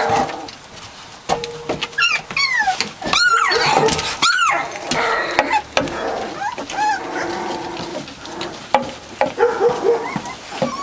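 A litter of three-week-old Catahoula Leopard Dog puppies yipping and whining, many short high calls overlapping, loudest a few seconds in.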